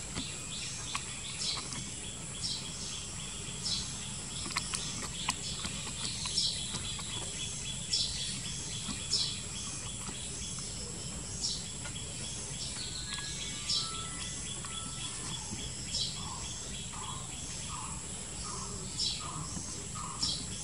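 Outdoor ambience of birds chirping, short high chirps repeating about once a second, over a steady high insect drone. In the last few seconds a run of lower, shorter calls comes in, about two a second.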